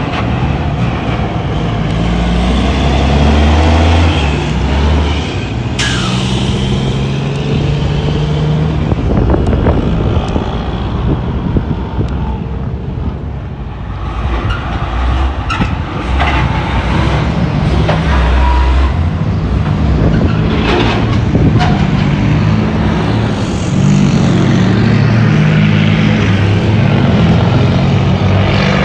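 Heavy diesel truck engine running under load, its pitch stepping up and down as it pulls and changes speed.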